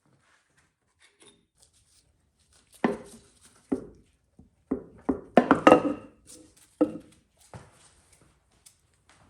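Metal parts clunking and clattering on a partly dismantled LT1 small-block V8, about eight separate knocks with a brief metallic ring at the loudest ones in the middle, as the cylinder head is worked off the block.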